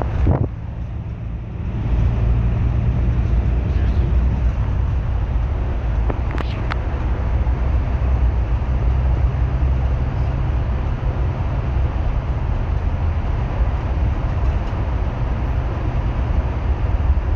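Bus in motion: a steady, loud low rumble of engine and road noise, dipping briefly about half a second in, with a few faint clicks.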